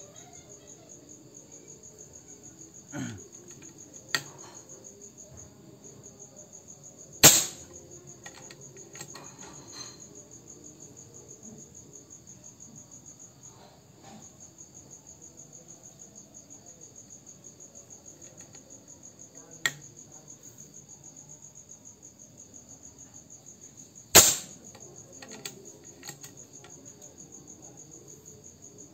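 Two suppressed shots from a PCP air rifle, about 17 seconds apart, each a sharp crack with a short tail, over steady cricket chirping. A smaller sharp click comes a few seconds before each shot.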